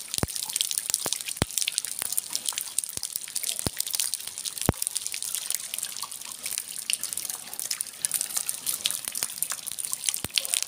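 Heavy rain falling on standing floodwater, a dense, steady patter of countless drops splashing. A few louder single drops stand out now and then.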